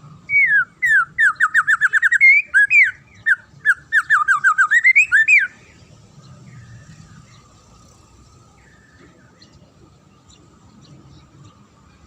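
A songbird singing a fast series of clear, downward-slurred whistled notes, about six a second, in two loud runs lasting about five seconds together. Only faint chirps follow.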